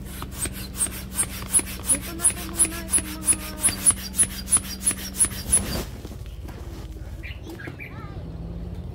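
Manual air pump inflating an air mattress, worked in quick even strokes about three a second, each stroke with a short squeaky rush of air. The pumping stops a little before the end and gives way to soft rustling on the mattress.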